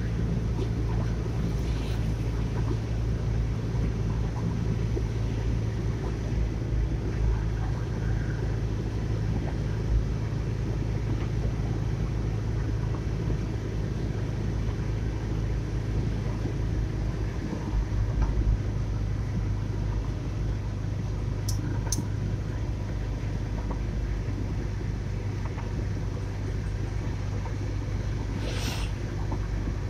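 Steady rumble of a car driving, heard from inside the cabin: engine and road noise with a constant low hum. Two faint clicks come about two-thirds of the way through, and a short sharp sound comes near the end.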